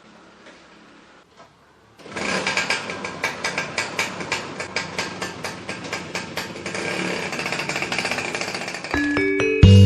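A loud, rapid mechanical rattle, like a small engine or power tool, starts suddenly about two seconds in and goes on steadily. Music with mallet-like tones comes in near the end.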